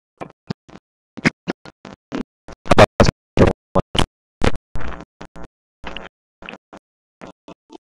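An irregular run of short knocks and scratchy clatters, with silence between them, loudest about three seconds in.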